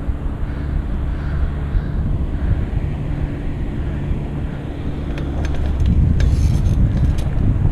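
Wind buffeting the microphone and tyre rumble from a BMX bike rolling over asphalt, a steady low noise throughout. A few sharp clicks and rattles come in the last two seconds.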